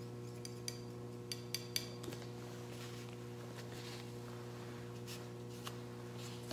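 Steady low hum in the room, with a few light clicks and taps of a paintbrush worked at the palette and water pot, mostly about a second and a half in, and a soft rustle as the brush is wiped in a paper towel.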